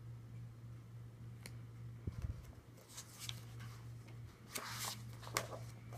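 Glossy pages of a souvenir musical brochure being turned by hand: paper rustling and sliding in two short bursts about three seconds in and again near five seconds, with a soft thump just before. A steady low hum runs underneath.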